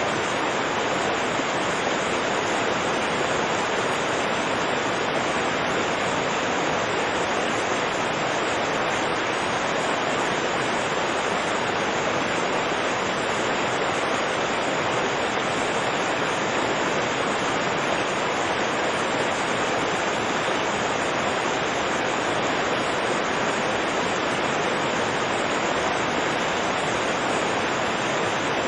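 Fast-flowing river rushing, a steady even torrent of water with no breaks or changes.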